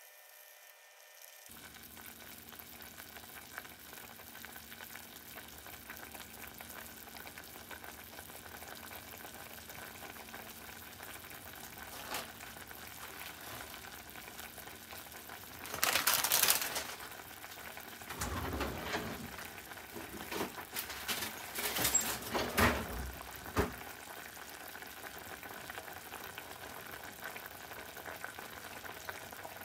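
Ramen soup boiling in a pot, a steady bubbling sizzle, with a few louder bursts of sputtering and popping in the middle.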